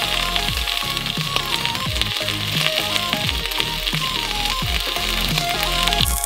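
Steady sizzling hiss from a hot Siemens 1800 W steam iron pressed onto popcorn kernels on foil, cutting off suddenly near the end. Electronic background music with a steady beat plays underneath.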